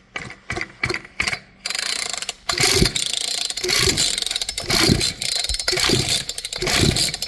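Recoil pull starter of a Poulan 2150 two-stroke chainsaw yanked repeatedly, about one pull a second, the rope whirring out and the engine turning over without starting. The engine is being cranked for a spark test, and the spark is good.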